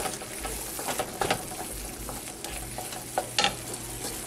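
Lentils and tomato sofrito sizzling in a nonstick frying pan as a wooden spoon stirs them, with a few short scrapes of the spoon against the pan.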